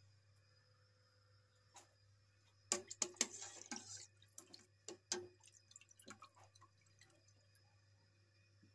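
Water heating in a wok, giving off irregular pops and bubbling that come thick for about a second, starting nearly three seconds in, then thin out. A steady low hum runs underneath.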